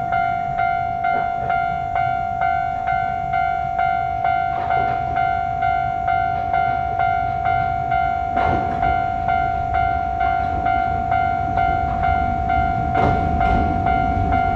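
Japanese level crossing's electronic warning bell ringing steadily, about two and a half dings a second. Under it a train rumble builds from about four seconds in, with a few sharp wheel clacks near the middle and end as the train passes.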